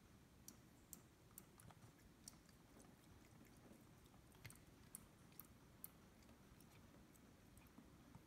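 Near silence with faint, irregular wet clicks, one or two a second, as a cat drinks at water dripping from a kitchen faucet.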